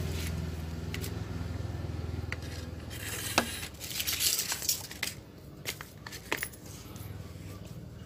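Small tools and collar parts being picked up and set down on a tiled floor: scattered clicks and knocks, the loudest a little over three seconds in and a quick run of them around four seconds, over a steady low hum.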